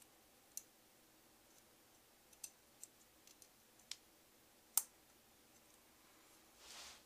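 Small, sharp clicks of bolts and the CPU cooler backplate being handled and fitted by hand. About half a dozen scattered clicks, the loudest a little under five seconds in, then a brief rustle just before the end.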